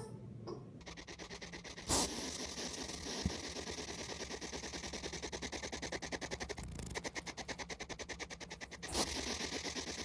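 Pet hedgehog huffing with its quills raised: a long run of rapid rasping puffs, about eight to ten a second, with two louder bursts, one about two seconds in and one near the end. This huffing is a hedgehog's defensive warning at being disturbed.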